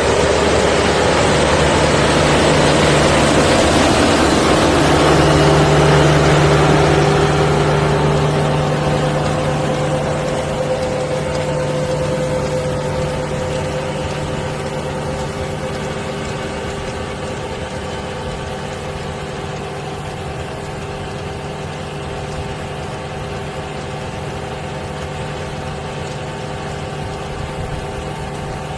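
Tractor diesel engine running steadily, loudest in the first several seconds, then growing gradually quieter.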